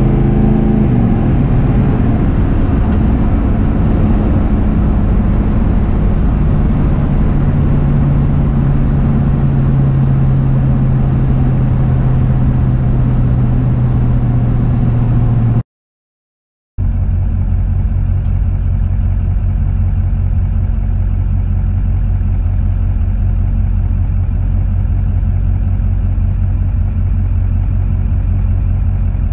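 Diesel pickup truck engine heard from inside the cab, its pitch falling slowly as the truck slows after a quarter-mile drag run. After a brief dropout about halfway through, the engine runs steadily at a low idle.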